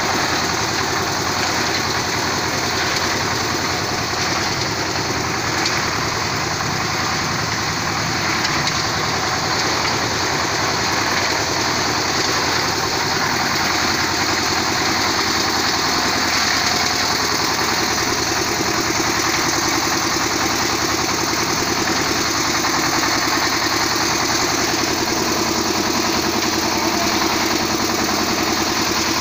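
A steady mechanical drone, like an engine running at an even speed, with no change in level or pitch.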